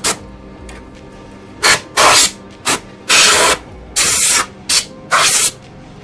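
Can of compressed air blowing dust out of a desktop PC in a series of hissing bursts, about seven in all: some brief puffs and some about half a second long.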